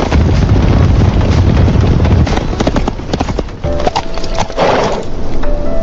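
A cavalry charge: many horses galloping, a dense clatter of hooves over a low rumble. A short burst of noise cuts in near the end.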